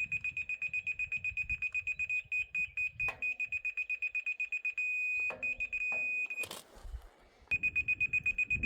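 Rotary laser level's receiver beeping at a high pitch in quick pulses, about seven a second. Past the middle the beeps merge into a steady tone, the usual on-grade signal of such a detector. The sound stops briefly after a short rustle, then resumes as quick beeps near the end.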